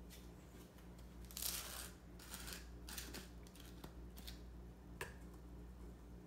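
Light handling noises while baking: a short rustle about a second and a half in, then several small clicks and taps, over a steady low hum.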